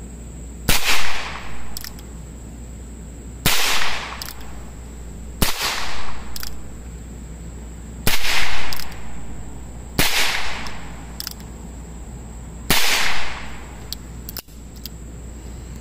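H&R Model 649 .22 LR revolver fired six times, the shots about two to three seconds apart, each a sharp crack with a short echoing tail.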